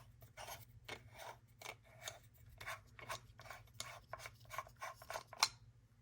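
Threaded parts of a STARESSO portable espresso maker being twisted apart by hand: a run of short rasping strokes, about two or three a second. The last and loudest comes near the end, then it stops.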